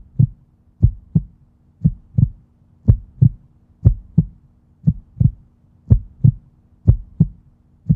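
Heartbeat sound effect on the end card: paired low thumps, a double beat about once a second, over a steady low hum.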